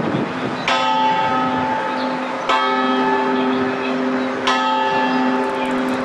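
The Delta Queen's Kaye Co. ship's bell, rung three times about two seconds apart, each stroke ringing on as the next falls.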